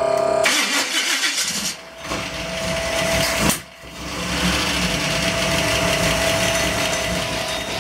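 A 1991 Chevrolet Camaro's carbureted engine running steadily, broken by a short dip a little before halfway. A short steady tone sounds at the very start.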